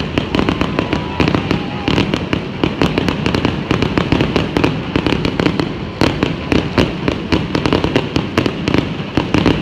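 Aerial fireworks display: a continuous barrage of shell bursts, several bangs a second with no let-up, over a dense crackle.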